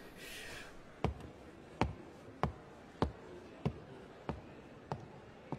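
Footsteps on a wooden gym floor: a slow, even walk of about eight steps, each a sharp knock with a low thud, starting about a second in.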